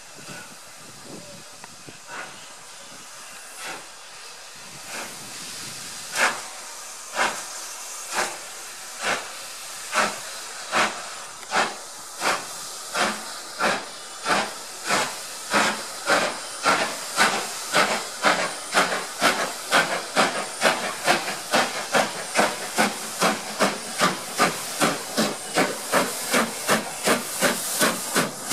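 Steam locomotive B12 4-6-0 No. 8572 getting under way, its exhaust chuffs far apart at first, then quickening to about two a second and growing louder as it comes close, over a steady hiss of steam escaping around its cylinders.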